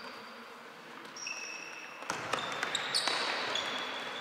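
Futsal game sounds on a hard indoor court: shoes squeaking sharply on the floor. From about two seconds in, the ball is kicked and thuds several times, with the hall noise rising.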